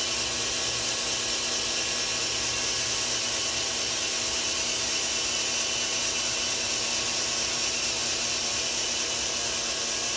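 Cordless drill running steadily without a break, spinning the engine's oil pump through a priming tool to prime a freshly built engine's oil system; oil has just reached the rocker arms.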